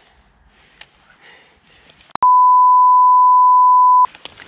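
Censor bleep: a loud, steady pure tone at about 1 kHz lasting about two seconds, starting about two seconds in and replacing all other sound while it lasts. Before it there is faint rustling in grass.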